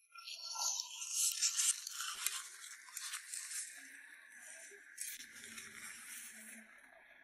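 A paper towel rubbing over the glossy plastic lid of an eyeshadow compact, scrubbing and crinkling, loudest in the first couple of seconds. There are a few light clicks as the compact is handled, and the rubbing fades as the paper towel is pulled away.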